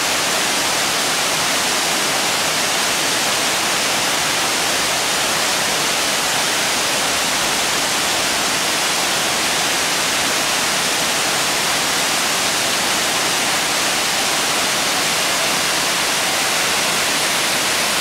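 Dudhsagar Falls pouring over rock: a loud, steady rush of falling water with no let-up.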